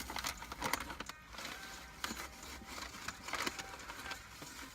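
Close-up crunching and chewing of crunchy, fried Flamin' Hot Mac n' Cheetos, a run of irregular crackly crunches with a faint low hum underneath.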